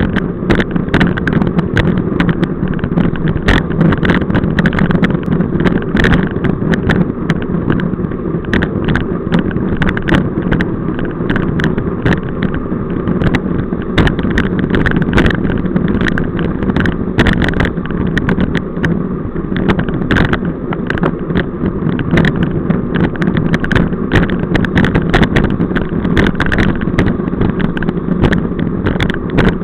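Wind rushing over the microphone of a camera on a moving road bicycle, with steady low road-and-tyre rumble. Frequent short sharp clicks and rattles come through irregularly.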